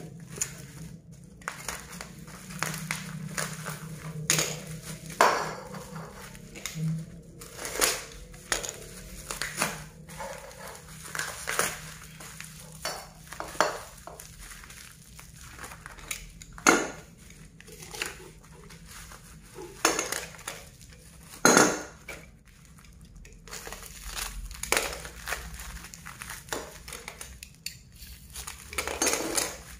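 Packaging being cut and torn off a steel motorcycle exhaust header pipe with a box cutter: irregular scraping, ripping and crinkling of tape, cardboard and plastic, broken by sharp clinks and knocks as the metal pipe and cutter hit the tiled floor. The loudest knock comes a little past the middle.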